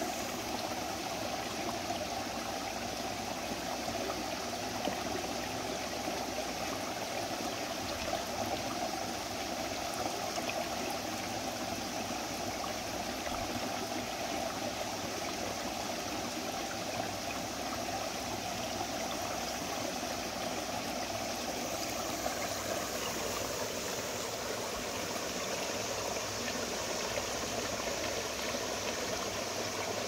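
Steady rush of a rocky mountain stream flowing, an even wash of water noise with no breaks.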